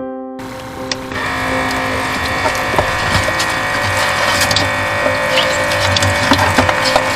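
A short keyboard jingle ends about half a second in. A kitchen tap then runs into a stainless-steel sink while a toothbrush scrubs blue swimmer crabs' shells, with steady water noise and many sharp scratches and clicks of shell and bristles.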